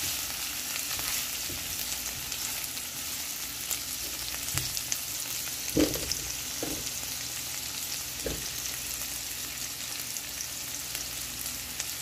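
Chopped onion frying in hot oil in a nonstick pan, a steady sizzle with fine crackles as the onion is being browned. It is stirred with a spatula at first, and a few light knocks come about halfway through.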